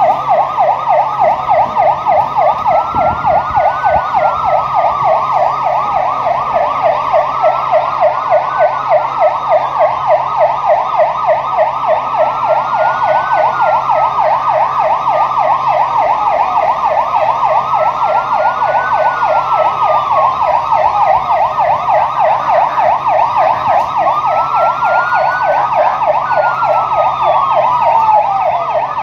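Two emergency vehicle sirens sounding together without a break. One is a rapid warbling yelp. The other is a slower wail that rises and falls about every five seconds.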